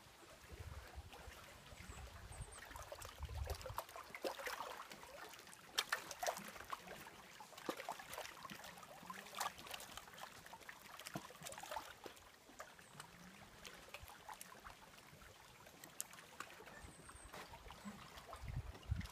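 Small lake waves lapping and splashing irregularly against a rocky shoreline.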